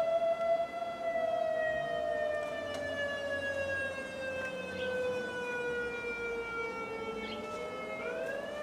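Outdoor warning siren wailing: a single tone slides slowly down in pitch for several seconds, then swings back up quickly near the end.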